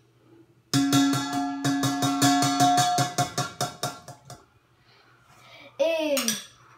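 A metal spoon knocking quickly and repeatedly against a stainless steel mixing bowl for about three and a half seconds, the bowl ringing under the taps as food is knocked off the spoon. Near the end, a child's short rising-and-falling vocal sound.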